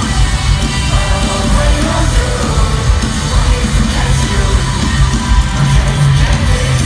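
Live rock concert music played at full volume, with a shouted vocal over the band.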